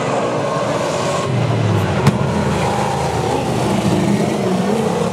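A pack of speedway saloon race cars running together on a dirt oval, several engines revving and easing at once so their pitches rise and fall over each other. A single sharp crack stands out about two seconds in.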